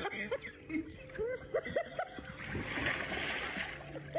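A person splashing into a swimming pool off an inflatable float, a burst of splashing water about two and a half seconds in, with people's voices and laughter around it.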